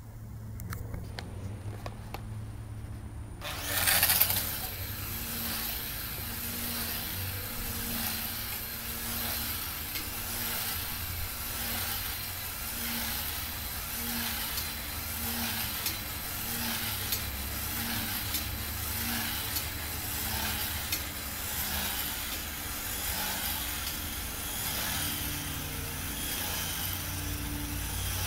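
The electric motor and propeller of a tethered radio-controlled model Spitfire start suddenly about three and a half seconds in, then whine steadily as the plane flies in circles on its tether. The sound rises and falls about once a second.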